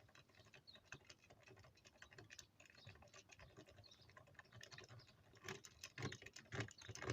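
Faint, rapid, irregular clicking and ticking, a little louder from about five and a half seconds in.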